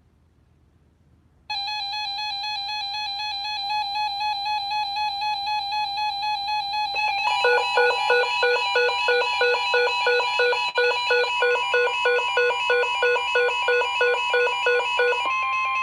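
Weather radio alert tones: a steady electronic tone comes on about a second and a half in, and from about seven seconds a fast two-pitch beeping alarm, about three cycles a second, plays over it. Near the end the beeping stops and the steady NOAA Weather Radio warning alarm tone sounds alone, the signal that a warning is about to be read.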